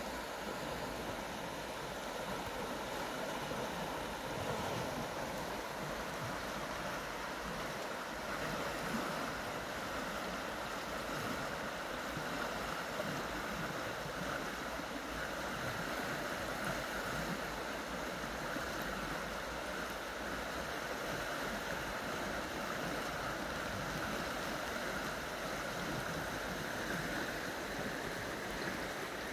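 Steady rushing of a fast-flowing river, water rippling past fallen logs.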